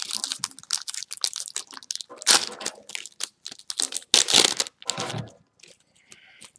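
Plastic booster pack wrapper crinkling and tearing as it is ripped open and the trading cards are handled, in quick crackly bursts, loudest about two and four seconds in.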